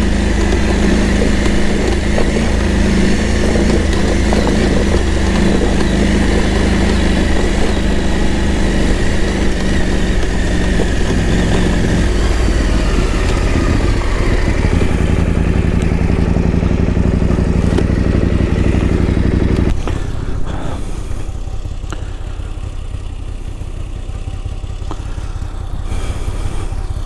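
2023 KTM 890 Adventure R's parallel-twin engine running steadily under way. About twenty seconds in, the note drops suddenly and the engine carries on lower and quieter, as the bike eases off.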